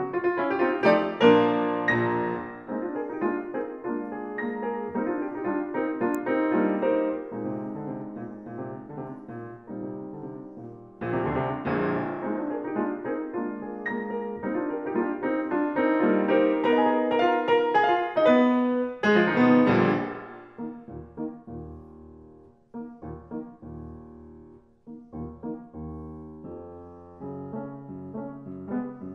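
Piano music: fast runs of notes that swell twice, then thin out to a quieter, sparser passage about two-thirds of the way through.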